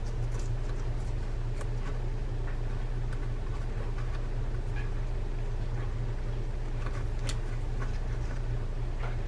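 Faint, scattered small metal clicks and taps as a tension spring is fitted by hand onto the side plate of an Abu Garcia Ambassadeur 6500 baitcasting reel, over a steady low hum.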